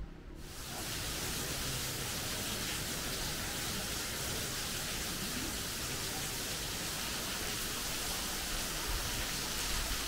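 Waterfall: a steady rush of falling water that starts abruptly just after the opening.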